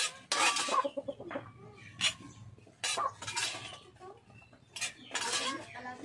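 Chickens clucking, with a few short clatters of dishes and utensils.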